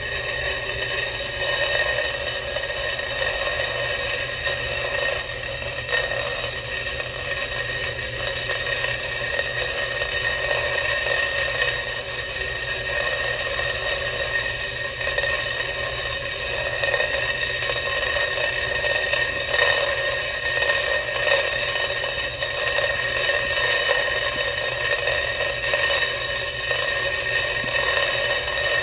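Many metal sewing-machine bobbins rattling and chattering together in a vibrating metal pan, over a steady machine buzz.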